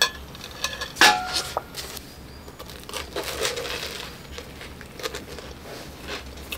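Close-up eating sounds: a sharp clink about a second in, then bites into toast held in a paper cup, with crunching, crinkling of the paper and chewing.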